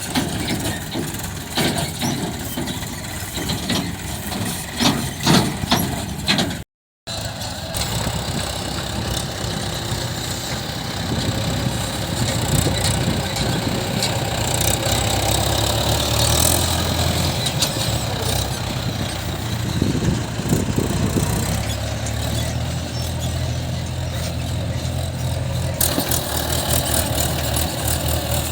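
Diesel engines of a backhoe loader and tractor running steadily, with sharp knocks and clanks over the first few seconds. The sound cuts out briefly about seven seconds in, then the engines carry on.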